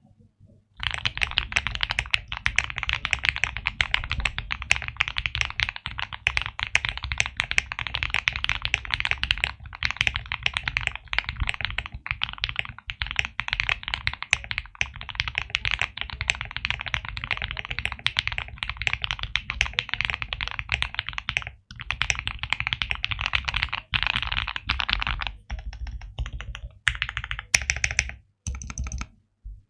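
Fast, continuous typing on a Neo65 gasket-mount mechanical keyboard with lubed and filmed Gateron Oil King linear switches on a polypropylene plate, fully foamed. Near the end the typing breaks into a few short runs of keystrokes before stopping.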